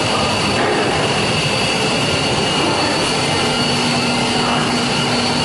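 Continuous belt conveyor fryer line running: a loud, steady machine noise with a constant high whine, joined about three seconds in by a low hum.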